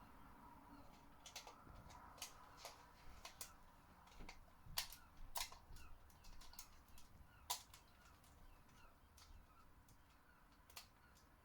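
Faint, irregular clicks and taps of a screwdriver and small plastic parts, as the toy's remote control is handled and its battery cover fastened.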